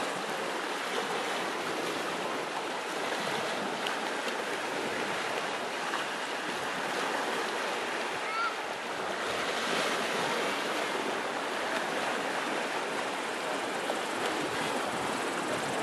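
Gentle sea waves washing in a steady, even hiss.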